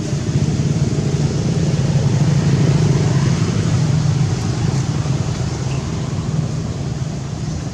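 A steady low rumble like a motor vehicle's engine going by, loudest a couple of seconds in and easing off toward the end.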